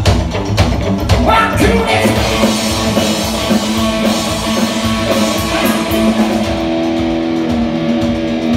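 Live rock band playing electric guitars over a drum kit, loud and amplified. Drum hits stand out early on, and the guitars settle into long held notes from about two-thirds of the way through.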